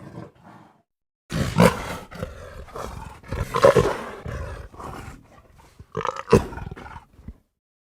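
Arabian leopard roaring in a string of harsh, rasping calls that begin after a brief gap and run for about six seconds, loudest in the middle and again near the end.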